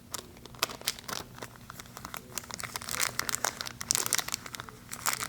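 Small plastic parts bag crinkling and crackling in the fingers as a tiny O-ring is worked out of it: irregular rustles and clicks that grow busier a few seconds in.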